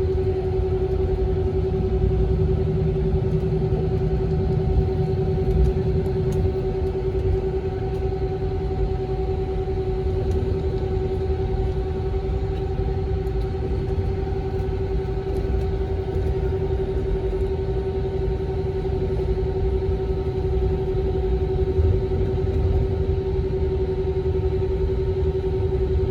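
Cabin noise inside an Airbus A321 on the ground with its engines running: a steady low rumble and drone with a constant mid-pitched hum.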